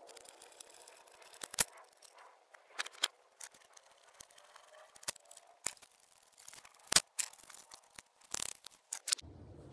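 Scattered sharp clicks and light knocks of hand tools and engine parts being handled, at irregular intervals, the loudest about a second and a half in and again about seven seconds in.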